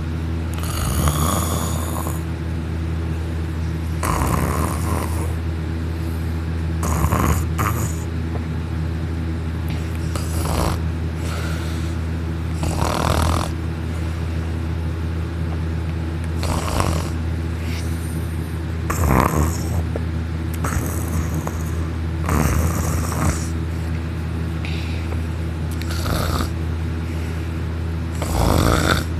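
A young man snoring heavily in a deep sleep brought on by sleeping pills: about ten loud snores, roughly one every three seconds, over a steady low hum.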